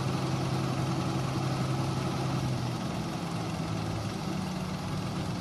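Engines of a New Holland combine harvester and a Fiat 480 tractor running steadily while the combine unloads grain through its auger. The engine note shifts in pitch about halfway through and settles on a higher steady tone near the end.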